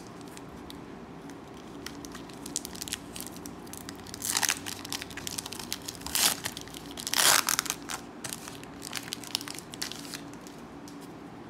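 Foil Pokémon booster pack wrapper crinkling and crackling as it is handled and torn open, with three louder rips in the middle.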